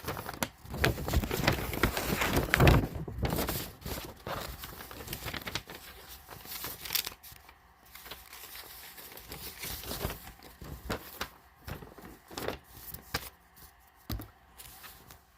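Paper crinkling and rustling as a folded paper manual and packaging are handled, with scattered light clicks and knocks. Loudest in the first few seconds, then quieter and more intermittent.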